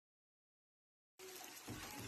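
Silence, then about a second in a steady rushing hiss starts abruptly, with a low rumble shortly after it begins. It comes from a street filled with thick volcanic ash haze.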